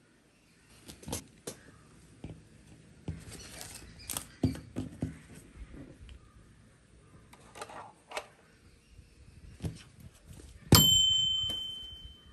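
Small objects being handled and set down on a desk, giving scattered light knocks and taps. Near the end a single sharp strike rings out as a clear, high metallic ding that fades over about a second and a half.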